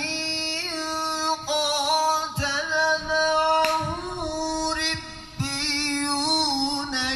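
Quran recitation (tilawat): a single voice chanting in long held notes with melismatic turns, with a short pause about five seconds in.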